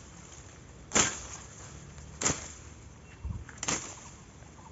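Machete (dao) chopping, three sharp strokes about a second and a quarter apart, with a fainter knock between the last two.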